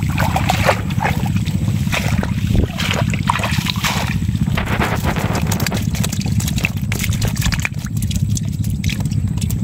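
Water trickling and splashing as shrimp and small fish are shaken out of a bamboo shrimp trap into a woven bamboo basket, with many small clicks and rattles from the bamboo slats, over a steady low rumble.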